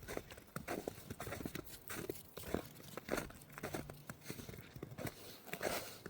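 Footsteps crunching over the ground of a winter trail, an irregular run of crunches and crackles several a second.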